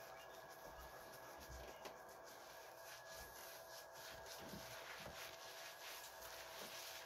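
Faint wet rubbing and crackling of shampoo lather as fingers scrub it through a beard, over a faint steady hum.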